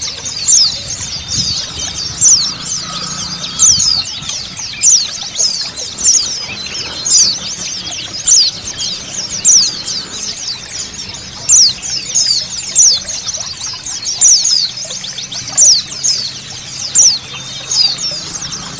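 A group of white-eyes (pleci, Zosterops) twittering continuously, many high, quick downward-slurred notes with a louder call about once a second, over the hiss of running water.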